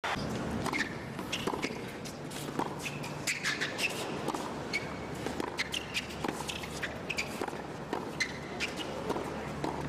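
Tennis rally on a hard court: repeated sharp strikes of racquets on the ball, mixed with players' shoes squeaking and scuffing on the court surface.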